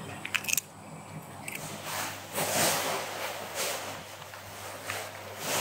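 A cat crunching a small piece of fish cracker: a few sharp crunches at the start. Then several short, crisp crackling crunches of dry fish crackers.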